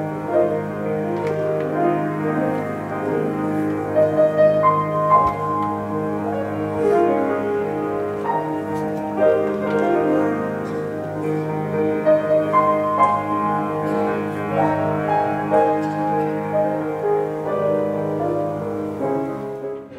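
Grand piano played solo: a melody moving over held low notes.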